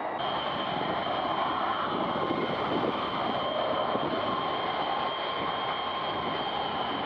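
Airbus A330's turbofan jet engines running steadily at low power as the airliner taxis, a constant high whine over a rushing noise. The whine sets in abruptly just after the start.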